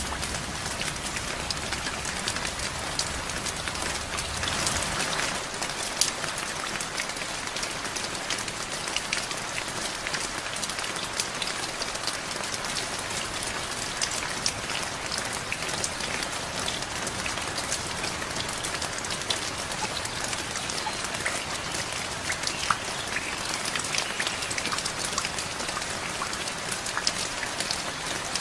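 Steady rain falling on a surface, individual drops ticking through a continuous hiss, with a brief swell of heavier rain about five seconds in.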